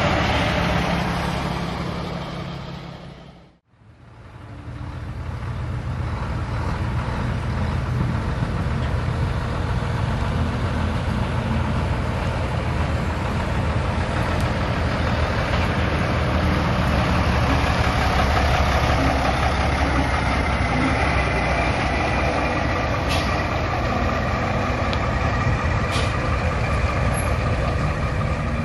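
Diesel truck engines running as trucks drive slowly past: a blue long-hood semi tractor, which fades out a few seconds in, then a Mack R-model tow truck rolling by with its diesel engine running steadily. Two short sharp clicks near the end.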